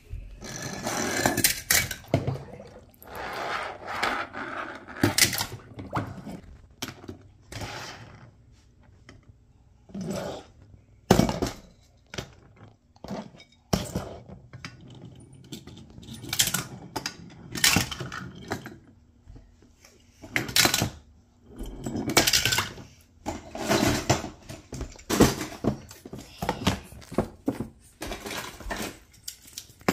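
Die-cast metal toy cars clinking and knocking against one another and onto a hard tabletop, in irregular bursts of clatter with short pauses between.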